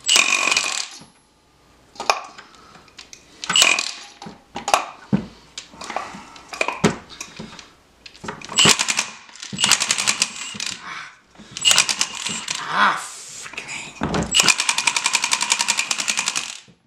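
Cordless Milwaukee impact wrench hammering in repeated short bursts on a stuck 27 mm fitting of a rusted air-brake antifreeze pump body, trying to break it loose. A longer burst of rapid hammering comes near the end.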